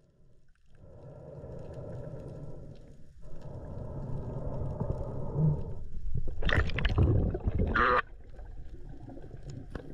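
Underwater sound picked up by a diving camera: a muffled wash of water noise with a faint steady hum in it. It swells into a louder gurgling surge about six and a half seconds in, which cuts off suddenly about eight seconds in.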